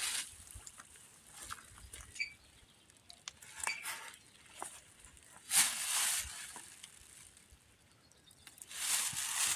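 Leaves and foliage rustling in a few short bursts as plants are handled, the loudest about six seconds in, with faint clicks between.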